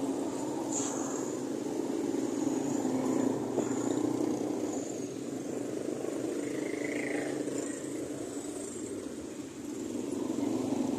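Steady rumble of road traffic, with motor vehicles running past.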